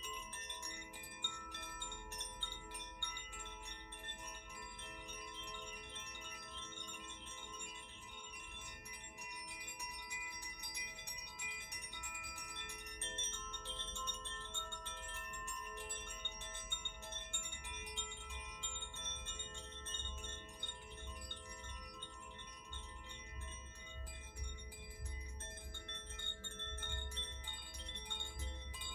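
Several tuned Koshi and Zaphir wind chimes ringing together. The clappers strike the rods in a constant light tinkle, and many overlapping tones hang on under it, rich in overtones.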